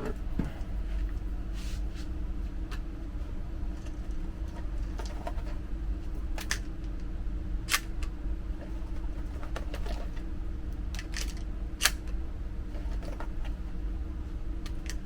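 A handful of sharp, separate clicks and clacks of handling, the loudest about 8 and 12 seconds in, over a steady low hum in a small room.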